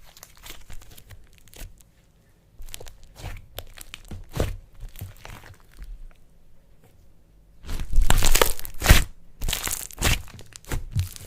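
Crunchy slime being pressed and pulled, giving scattered crackles and crunches. A loud run of dense crackling comes about eight seconds in, with another shortly after.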